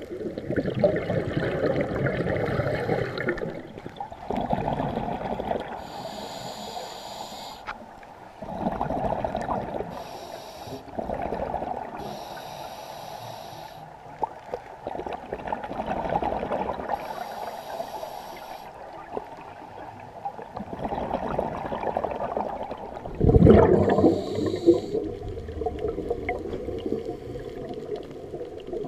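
Scuba diver breathing through a regulator underwater: hissing inhalations alternate with longer bubbling exhalations, one breath every several seconds, with one especially loud rush of bubbles about two-thirds of the way in.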